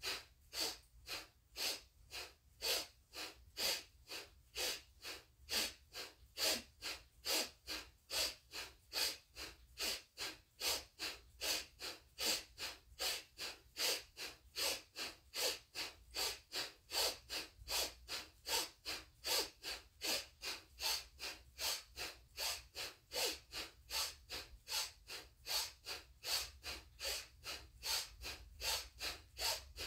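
Rapid, rhythmic forceful breathing through the nose in a Kundalini yoga breathwork exercise: an inhale with each upward arm stroke and a sharp exhale with each pull-down, about two and a half breaths a second, steady throughout.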